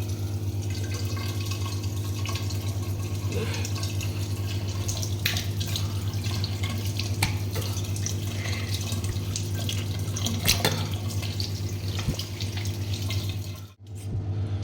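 Tap water running into a bathroom sink, with a steady low hum underneath and scattered small clicks and knocks.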